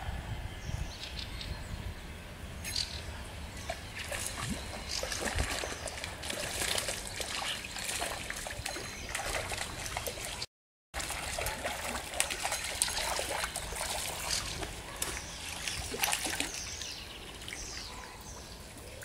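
Small stream trickling around a wading angler, with irregular splashes as a hooked trout is played toward the net.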